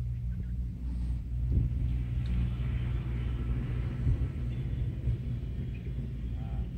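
Steady low motor rumble, holding an even pitch, with a few faint knocks on top.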